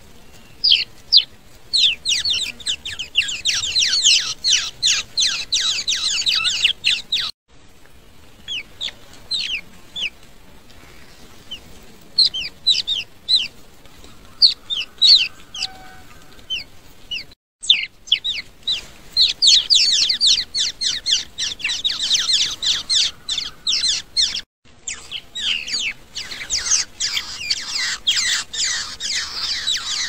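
Nestling birds cheeping: many rapid, high-pitched, short falling chirps in dense runs that thin out in the middle and break off abruptly a few times.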